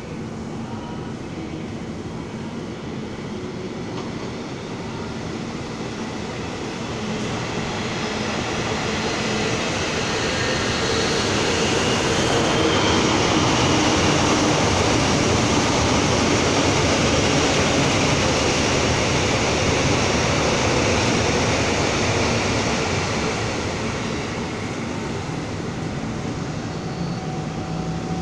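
Electric commuter train passing close by on the tracks: a steady rumble that builds over several seconds, is loudest for about ten seconds in the middle, and then fades as the train moves away.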